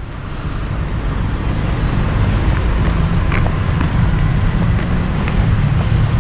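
Road traffic noise: a steady low rumble of vehicles that fades in over the first couple of seconds and then holds.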